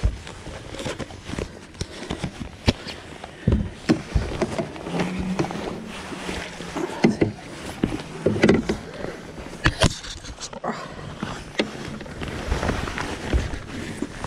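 Irregular knocks, bumps and rustling from handling in a small boat, over a constant hiss of background noise.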